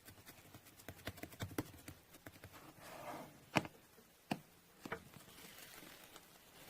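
A quick run of light clicks and taps, a brief rustle, then three sharper single knocks about half a second apart.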